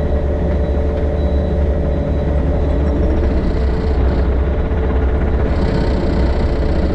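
Excavator's diesel engine running steadily under the operator's seat, with a deep rumble and a steady hum from the machine. A higher hiss rises briefly twice, about three and about five and a half seconds in, as the hydraulics work.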